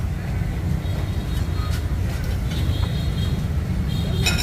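Steady low rumble of background noise, with a few faint clinks and a sharp clack about four seconds in.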